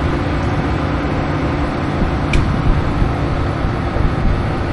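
Steady running noise of a vehicle with its engine going, with one short faint high chirp a little over two seconds in.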